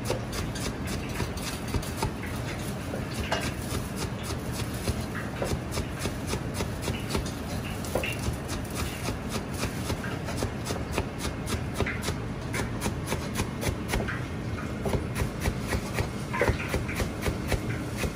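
Chinese cleaver rapidly slicing long green onions on a thick plastic cutting board: quick, even knife taps, about four a second, over a steady low background rumble.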